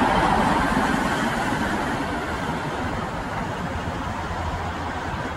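Steady outdoor background noise: a continuous rushing rumble with no distinct events, slowly getting quieter.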